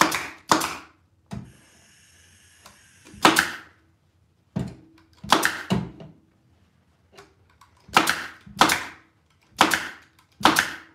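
Pneumatic nailer/stapler driving staples through grain-sack fabric into a wooden chair seat board: about nine sharp shots, several in quick pairs.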